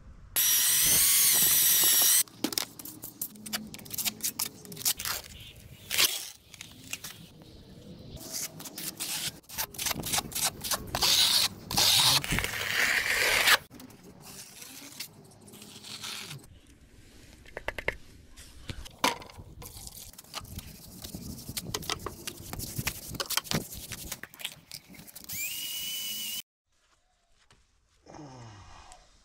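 Building work on a concrete slab: short bursts of a power tool's whine, the loudest near the start and another near the end, amid many knocks, taps and scrapes of tools on concrete.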